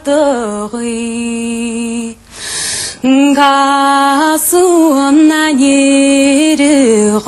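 A woman singing sean-nós in Irish, unaccompanied: long held notes decorated with small ornamental turns, with a short break for breath about two seconds in.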